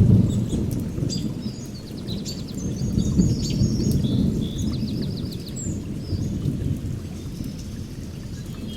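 Outdoor ambience of a low rolling rumble, like distant thunder, swelling and easing over a steady rain-like hiss, with small birds chirping and trilling above it, busiest in the middle.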